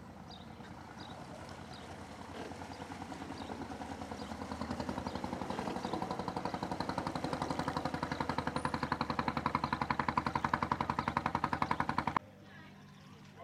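Small wooden boat's engine puttering in quick, even beats, growing louder as the boat passes close, then cutting off suddenly near the end.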